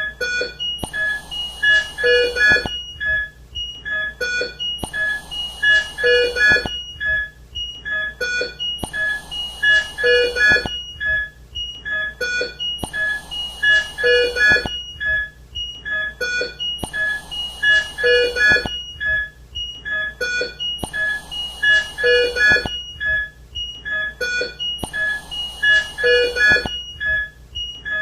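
Hospital ICU medical equipment alarms: clusters of short, high electronic beeps at several pitches, the same pattern repeating about every four seconds.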